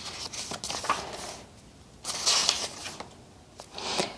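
Paper notebook pages and covers being handled and turned: several short rustling swishes with small clicks, the loudest about two seconds in.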